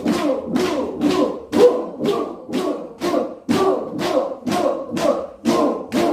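A group of people doing rhythmic laughter exercise, shouting laughing syllables in unison while slapping their thighs, about two slaps a second.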